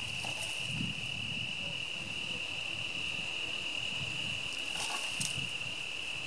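Steady high-pitched trilling of insects, with a couple of brief crackles of brush and twigs as a bull moose browses willow branches, near the start and about five seconds in. A low, uneven rumble of wind on the microphone runs underneath.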